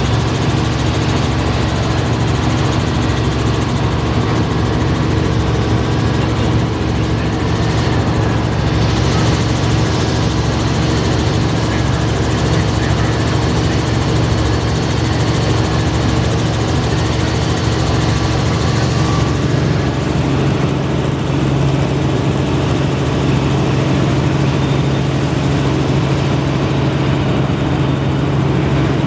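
Helicopter in flight heard from inside the cabin: a loud, steady engine and rotor drone with a low hum, its pitch shifting slightly about two-thirds of the way through.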